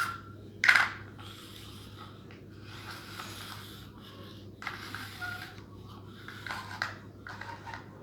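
Plastic toy pieces being handled: a sharp clack a little under a second in, then scattered light clicks and rubbing.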